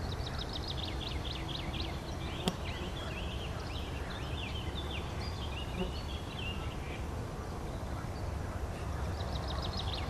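Songbirds singing: a fast run of falling chirps, then warbling phrases, then another fast run near the end. A steady low rumble runs underneath, and there is one sharp click about two and a half seconds in.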